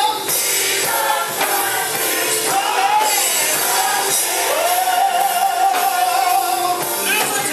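Gospel choir singing with a lead voice; the melody holds one long note through the second half.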